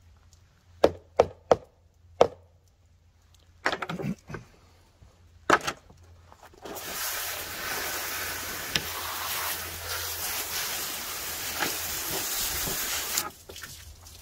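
Several sharp knocks on a plywood table, then a garden hose spray nozzle hissing steadily for about six seconds as water is sprayed over a salmon fillet, cutting off suddenly.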